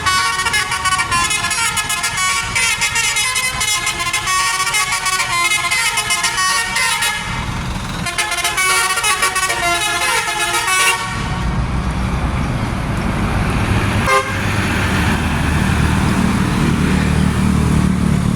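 Bus telolet horn, a Basuri multi-tone air horn, playing a quick melody of changing notes for about seven seconds, pausing briefly, then playing a few seconds more. After it stops, the bus's engine runs with a low, steady hum, and there is a single click partway through.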